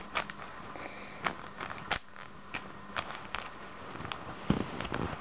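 Plastic speed cube being turned by hand, its layers snapping round in irregular clicks and clacks, a few a second.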